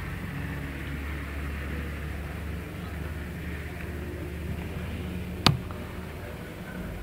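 A single sharp gunshot about five and a half seconds in, the loudest sound, over a steady low droning hum.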